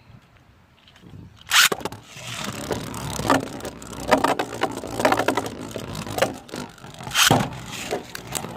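A Beyblade launcher pulled hard about a second and a half in, with a zipping rip, then 3D-printed Beyblade Burst tops spinning, scraping and clashing in a plastic stadium, with many clicks and a loud hit about seven seconds in.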